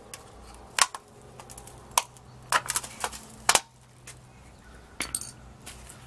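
About ten sharp, irregular clinks and taps as a small clay flowerpot and a metal hand tool are handled and knocked against a stone bench, bunched around the middle and again near the end.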